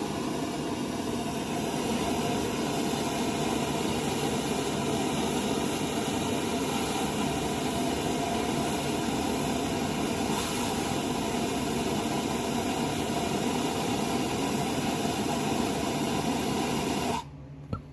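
Handheld gas torch burning with a steady hiss as it heats a half-inch copper pipe, used for singeing seat-belt and seat-mount holes through carpet. The hiss cuts off suddenly near the end.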